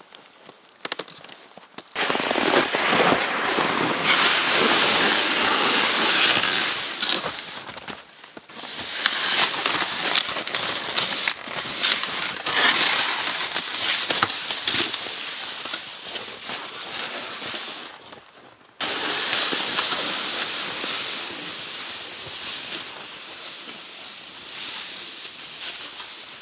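Small wood fire in a hobo stove crackling and hissing, with dense sharp pops, starting suddenly after a quiet first two seconds and changing abruptly to a steadier, quieter hiss about two thirds of the way in.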